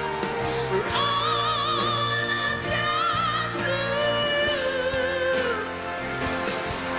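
A high voice singing long held notes with wide vibrato and a few sliding runs, over backing music from a ballad.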